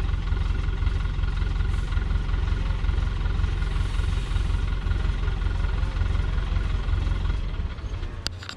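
Diesel engine of a loaded log truck running steadily with a low, even rumble. It dies down near the end, with a few sharp clicks.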